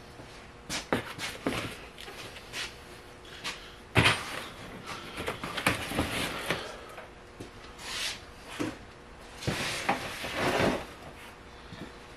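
Handling noise inside a car: a run of knocks and clatter with bouts of rustling as a cardboard box of parts is lifted off the seat and moved. A sharp knock about four seconds in is the loudest.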